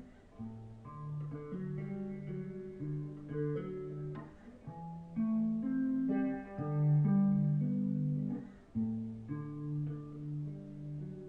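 Guitar playing an instrumental passage without singing: single picked notes moving over sustained low bass notes.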